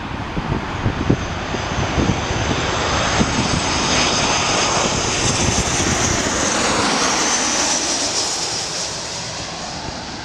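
Jet noise from a Korean Air Airbus A380's four engines at high thrust on its takeoff roll, swelling to a peak with a high whine a little past the middle and then easing off. Gusts of wind buffet the microphone in the first few seconds.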